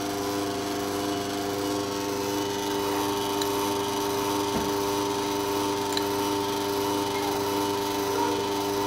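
Electric kitchen stand mixer running steadily at one speed, a constant motor hum with a fixed pitch, as it kneads bulgur with onion and garlic for çiğ köfte. A soft knock about four and a half seconds in.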